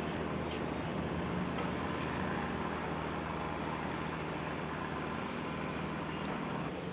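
Steady low rumble of distant motor engines and traffic, with an even hiss over it.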